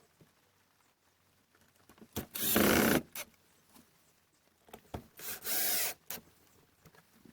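Cordless drill-driver running in two short bursts about three seconds apart, driving screws to fix the shelf to the wall, with light knocks and clicks between.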